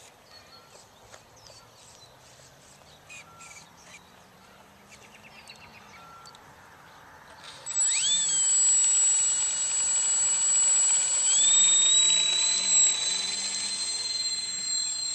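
A large RC plane's two brushless electric motors spool up with a sudden high-pitched whine about halfway through, after a mostly quiet start. The whine steps up in pitch a few seconds later as the throttle is opened for the takeoff run.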